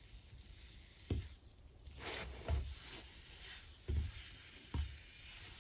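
Quiet handling sounds from making mung bean snow-skin mooncakes: about half a dozen soft knocks and scrapes, spread out, as the ingredients are worked by hand and utensil, over a faint hiss.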